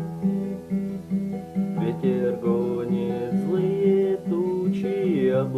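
Acoustic guitar playing an even strummed accompaniment, with a wavering melody line joining about two seconds in: the instrumental intro of a song.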